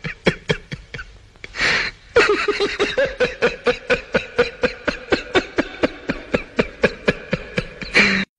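A woman laughing hard while being tickled, a fast even run of ha-ha pulses, about six a second, broken by a short gasping in-breath about one and a half seconds in and another near the end.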